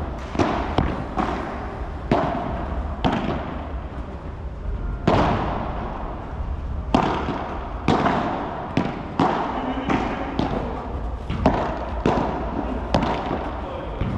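Padel rally: the ball struck by solid padel rackets and bouncing on the court, a dozen or so sharp knocks at uneven intervals.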